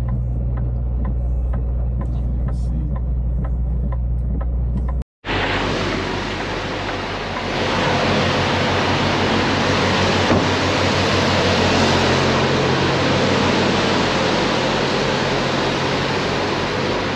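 A semi-truck's diesel engine running, a low steady hum with faint regular ticking, as heard inside the cab. About five seconds in, after a brief cut, a louder steady rushing noise comes in over the engine hum.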